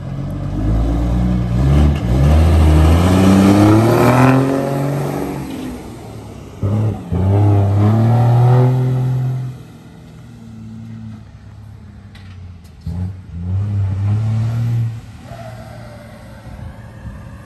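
Heavy box truck's diesel engine through a modified exhaust, pulling away and accelerating hard. The engine note climbs and is loudest a few seconds in, breaks at a gear change about six and a half seconds in, and climbs again. It then falls back, with one more short burst of throttle around thirteen seconds.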